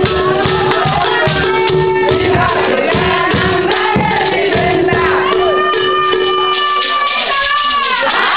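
A group of people singing together, many voices at once over a steady hum that stops about seven seconds in; near the end a high held note glides down.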